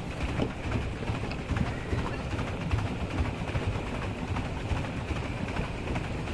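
Pedal boats' paddle wheels churning lake water: a steady low splashing rumble with faint irregular knocks.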